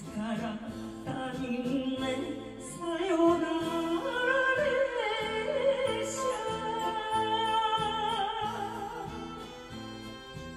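A woman sings an enka song through a handheld microphone over a karaoke backing track. She holds long notes with a wavering vibrato, and her voice drops away near the end while the backing music carries on.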